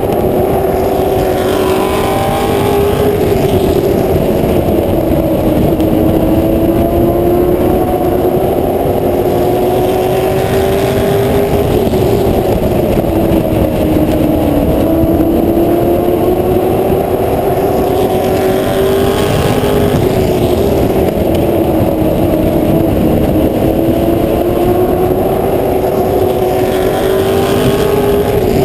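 Short-track stock car engine at racing revs, heard from the car's roof: its pitch climbs steadily down each straight, then drops sharply as the throttle comes off for the turns, about every 8 to 9 seconds, over a constant rush of wind and road noise.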